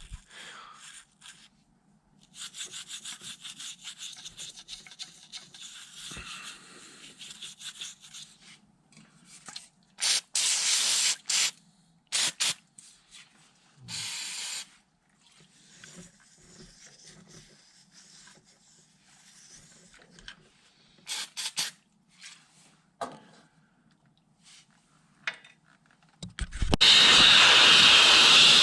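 Old toothbrush scrubbing in quick, rapid strokes on a hydraulic cab-latch cylinder. Several short hisses of aerosol brake cleaner follow, then a long, loud spray hiss near the end.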